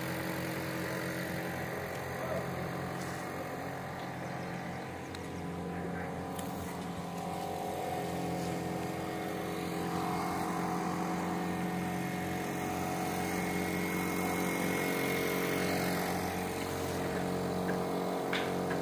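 An engine running steadily with an even hum.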